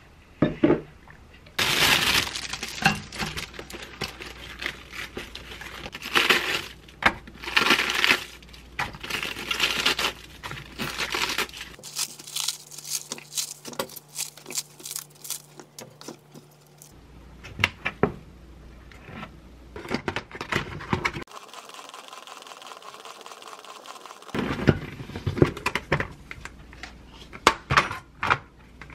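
Crisp iceberg lettuce being torn apart by hand and handled in a plastic bowl and salad spinner: a long run of sharp crackling, tearing and crinkling bursts. A few seconds of steady hiss comes about two-thirds of the way through.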